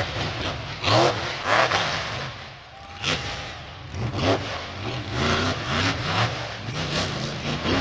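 Monster truck engine revving up and down repeatedly during a freestyle run, with several sharp, loud bursts of noise spread through it.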